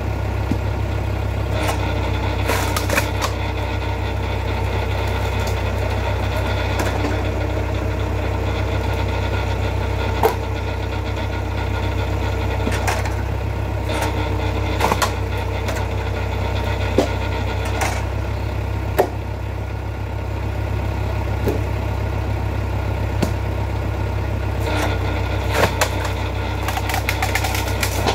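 Vertical hydraulic log splitter and its engine running steadily, a higher hum coming and going as it works. Sharp knocks and cracks sound every few seconds as the logs are split and handled.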